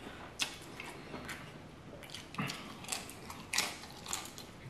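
A man biting and chewing strips of crisp bacon, with several sharp crunches spaced through the chewing.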